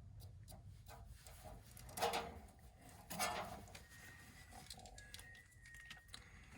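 Quiet handling noises, with two brief louder rustling scrapes about two and three seconds in.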